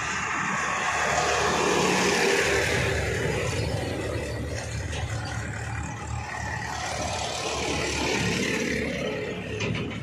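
Diesel farm tractors towing trailers drive past one after another, the engine sound swelling as each draws close: loudest about two seconds in and again near the end.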